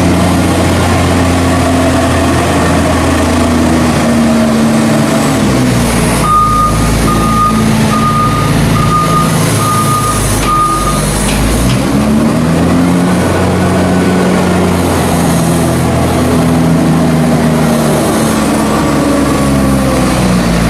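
Loader's diesel engine running as it drives back and forth rolling a maize silage clamp, its revs rising and falling several times. Its reversing alarm beeps about six times, one a second, starting about six seconds in.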